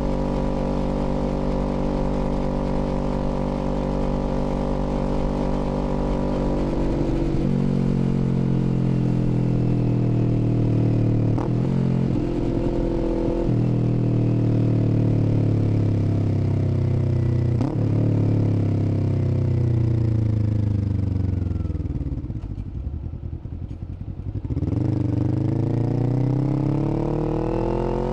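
Kawasaki Z400's 399 cc parallel-twin engine under way, holding steady revs at first, then changing gear with short breaks in the sound. The revs fall as the bike slows, drop briefly near idle and quieter around three-quarters of the way in, then climb again as it accelerates.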